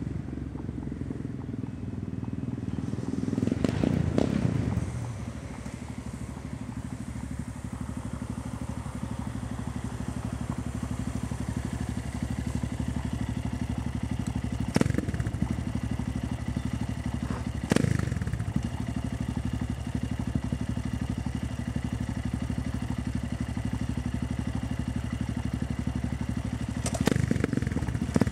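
Yamaha MT-03's 660 cc single-cylinder engine idling through an aftermarket Takkoni slip-on silencer with a steady, loud thump. The rider revs it once about four seconds in. Around the middle he gives two sharp throttle blips, each a crack that falls back to idle, and another near the end.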